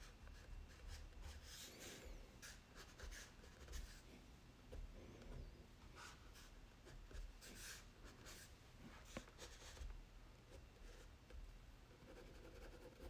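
Black Crayola crayon scratching across drawing paper in faint, short, irregular strokes.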